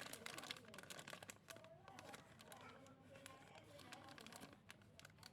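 Faint, irregular clicking and crinkling of small plastic parts and packaging being handled.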